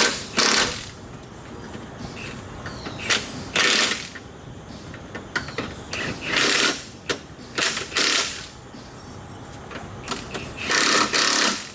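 A pneumatic tool, such as an air ratchet or impact wrench, run in about five short bursts, used to bolt up a new power steering rack.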